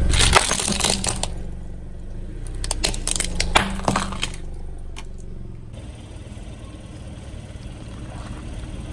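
Plastic toy jeep and the glass on its roof crackling and snapping as a car tyre crushes them, in two bursts of sharp cracks, each about a second long, over the low steady hum of the car's engine.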